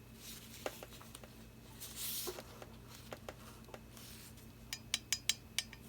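Painting tools handled against a paint cup: a soft scrape about two seconds in, scattered light taps, then a quick run of small sharp clicks near the end.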